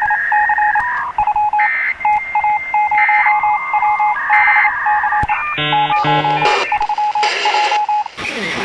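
Emergency Alert System electronic tones over a broadcast: a rapid chattering run of short beeps jumping between a few fixed pitches, with a short buzzing burst about two-thirds of the way through.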